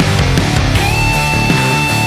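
Loud rock background music with a heavy, driving band sound; a long held high note comes in partway through.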